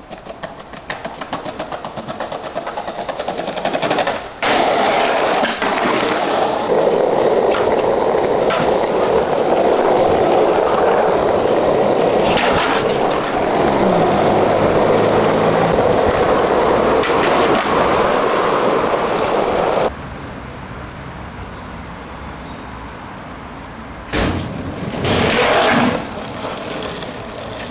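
Skateboard wheels rolling on rough asphalt, a steady loud rolling rumble after a few seconds of rapid clicking. It cuts off suddenly about two-thirds of the way through, and near the end there are two short, loud scraping bursts from the board.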